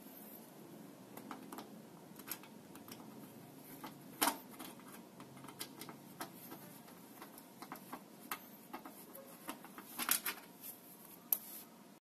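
Handling sounds as a 120 mm PC case fan and its packaging are unboxed: irregular light clicks and knocks, the loudest about four seconds in and a small cluster near the end, over a faint steady low hum.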